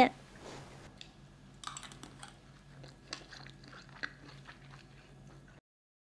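Faint chewing of a mouthful of rice with oil-fried wild mushrooms: a run of small crisp crunches and clicks that stops abruptly near the end.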